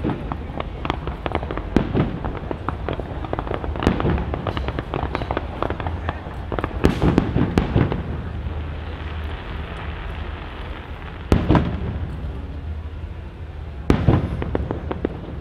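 Aerial fireworks going off in quick succession: a steady run of bangs and crackles, with a dense crackling flurry about seven seconds in. The two loudest bangs come about eleven and fourteen seconds in.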